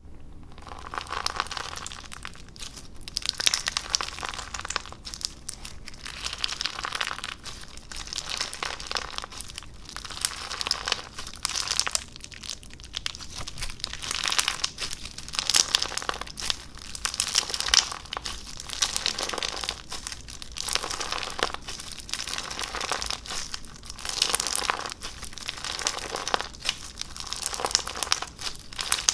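Slime being squished and pressed by hand: a dense run of crackles, pops and crinkles that swells and eases every second or two.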